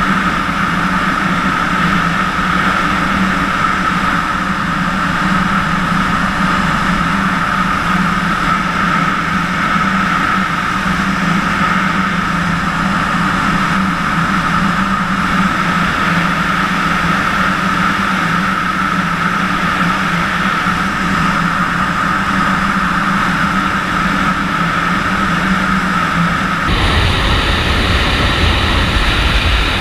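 Steady rush of airflow over the camera and wingsuit in fast gliding flight, with a constant low hum and a higher whistle held through it. Near the end it changes abruptly to a deeper, heavier wind rush.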